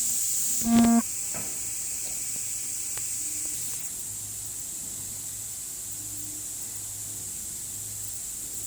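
Liquid filling machine running with a steady hiss, and a short tone about a second in.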